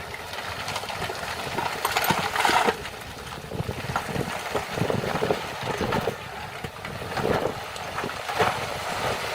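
Heavy construction machinery's diesel engine running, with uneven surges in level, the loudest just after two seconds in.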